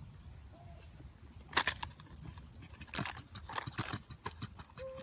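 Scattered sharp clicks and rustles over a low rumble. The loudest click comes about one and a half seconds in, and a quick cluster follows around three to four seconds. There are a few brief faint chirps.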